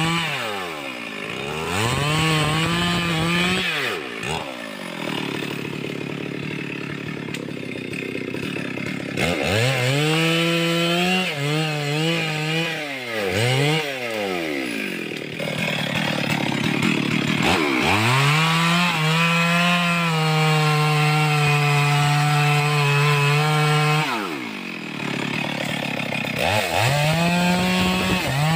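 Two-stroke chainsaw cutting into wood at full throttle, its engine dropping back toward idle and revving up again several times between cuts, so the pitch sweeps down and back up. The longest steady cuts come in the middle and near the end.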